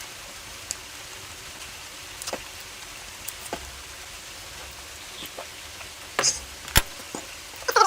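Close-miked eating sounds: scattered sharp chewing and mouth clicks over a low steady background, a few louder ones near the end.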